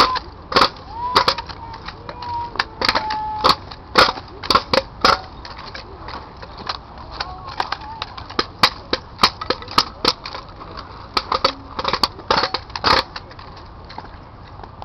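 Sharp slaps and knocks of hands catching, gripping and striking drill rifles during armed drill, coming irregularly and often in quick clusters. They thin out in the middle and stop a couple of seconds before the end.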